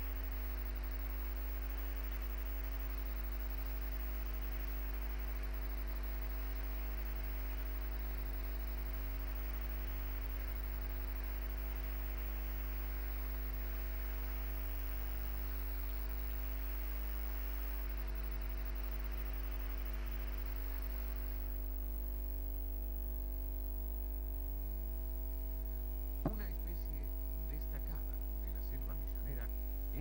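Rushing water of a large waterfall over a steady electrical hum; about two-thirds of the way in the water sound cuts off, leaving the hum with a few faint, brief sounds near the end.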